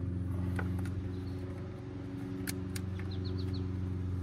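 A few sharp plastic clicks as the wiring connector on a sterndrive's power trim pump is handled and pushed together, over a steady low hum. A quick run of small bird chirps comes about three seconds in.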